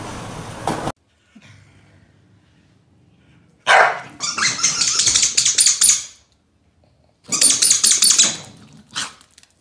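Two corgis barking at each other as they play-fight, in two long loud runs of rapid barks about four and seven seconds in, with a short last bark near the end.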